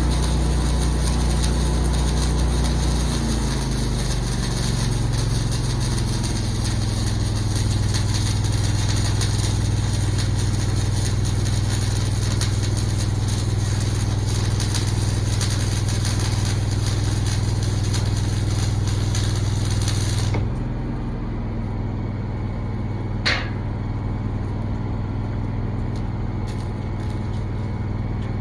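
An engine running steadily with a low hum, under a loud hiss that cuts off suddenly about twenty seconds in; one sharp click a few seconds later.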